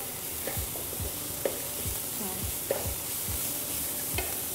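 Chopped onion, tomato, chilli and ginger-garlic sizzling in oil in a non-stick frying pan. A spatula stirs them, scraping and tapping the pan every second or so.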